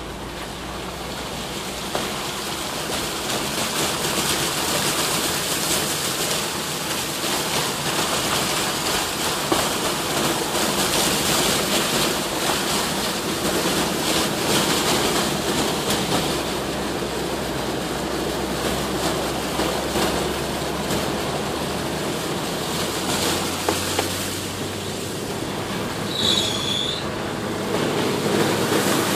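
Floodwater hissing and spraying against the underside and wheel arches of a 1993 Vauxhall Astra 1.4i petrol as it drives through a flooded road, heard from inside the cabin, with the engine's low hum underneath. The water noise builds over the first few seconds and then holds steady; a brief high squeak comes near the end.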